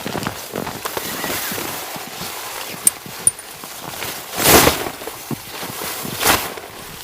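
Irregular crunching steps or scuffs, with two short, sharp, high clicks near the middle and two louder, longer crunching rushes in the second half.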